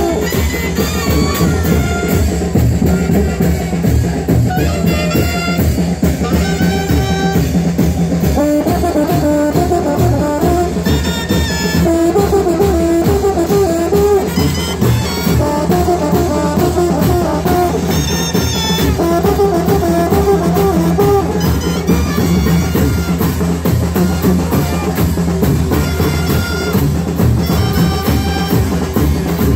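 Live brass band playing a chinelo dance tune: a brass melody over a steady, driving beat of drum and clashed cymbals.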